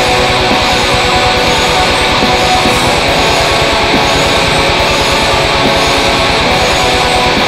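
Metal music: a dense, loud wall of distorted electric guitar over a fast, even pulse of low drum beats.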